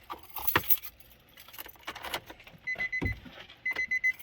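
Keys jangling and clicking, likely as the key goes into the Nissan 350Z's ignition, then the car's electronic warning chime beeping in two quick groups of short, high beeps.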